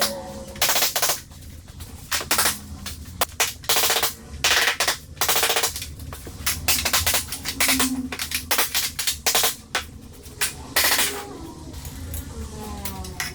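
Repeated sharp knocks of a mallet striking a tapping block to lock click-together vinyl floor planks into place, irregular, in quick clusters with short pauses between.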